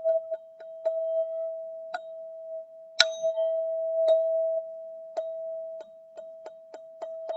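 Golden ZenTube struck in quick repeated taps, about three a second, holding one ringing note. A harder strike about three seconds in rings out for a moment before the tapping picks up again.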